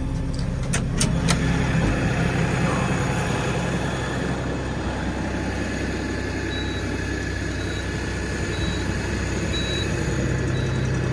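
LS 4140 tractor's diesel engine idling steadily. There are a few sharp clicks about a second in, and a faint high beep repeats about once a second in the second half.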